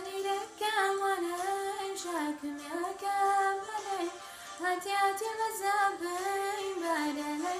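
A female voice singing a mezmur, an Ethiopian hymn, in a high register. She sings long, held phrases that bend up and down, with a short breath break about four seconds in.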